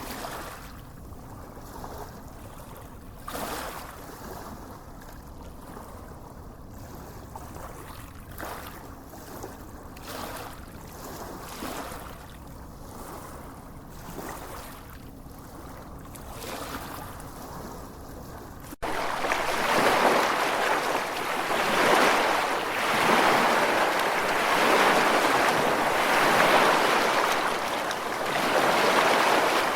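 Small waves washing onto a sandy beach, soft swells of surf with a low rumble underneath. About two-thirds of the way through the sound cuts abruptly to much louder, fuller surf that swells and ebbs.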